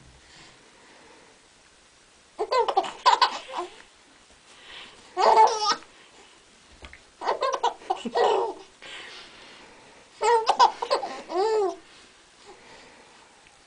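Baby laughing in four bouts of high giggles that rise and fall in pitch, each about a second long and a couple of seconds apart.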